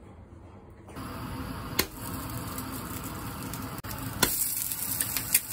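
An egg frying in a non-stick pan, sizzling steadily with sharp pops and spatters. It starts about a second in and grows louder and more crackly near the end.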